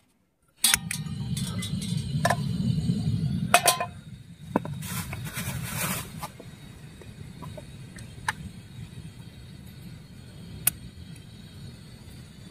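Small gas burner on a portable LPG cylinder running steadily under a cooking pot. It starts abruptly about half a second in, is louder for the first few seconds, then settles quieter. Scattered metal clinks of pot and utensils.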